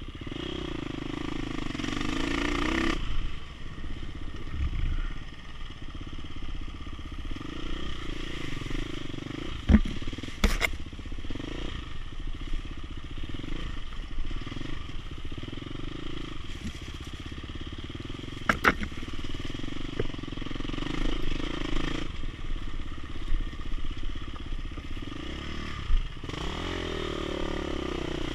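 Dirt bike engine running under way, revving up with a rising pitch in the first few seconds and again near the end. A few sharp knocks are heard along the way.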